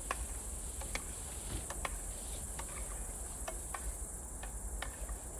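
Steady high-pitched chirring of grass insects such as crickets, with a dozen or so light, irregular clinks of a metal spoon against a steel soup pot as it is stirred.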